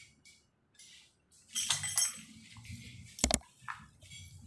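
Light metallic clinking and jingling of small metal parts being handled, with one sharp double knock a little past three seconds in.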